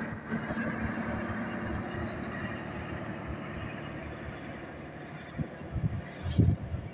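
Passenger train coaches rolling past on the track and moving away, the rolling noise slowly fading. A few low thumps come near the end.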